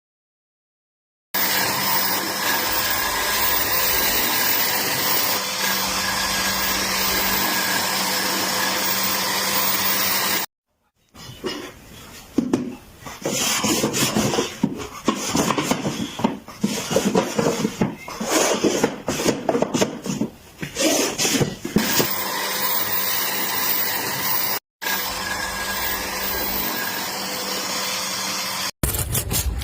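An electric power tool working wood, running with a steady hum. In the middle stretch it changes to irregular, uneven rasping as it cuts or sands under load. The sound breaks off abruptly a few times.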